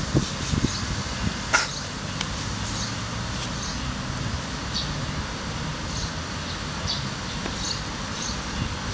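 Outdoor background with a steady low rumble, scattered faint high chirps and a few soft knocks and a sharp click in the first two seconds.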